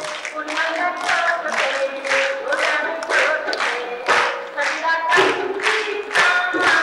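A Sindhi folk song sung live, with hand-clapping keeping a steady beat of about two claps a second.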